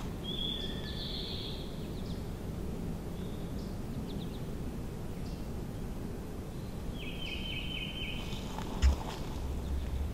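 Outdoor spring woodland ambience with a songbird trilling twice, a rapid high trill of about a second and a half each time, and one sharp knock about nine seconds in.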